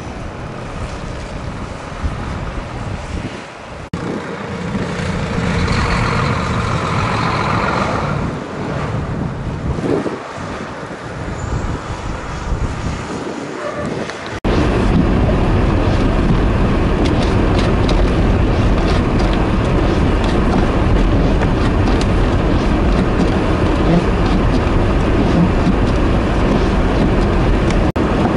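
Semi trucks moving slowly through deep snow: diesel truck engines and road noise. About halfway through, the sound jumps abruptly to a louder, steady rumble of traffic and wind.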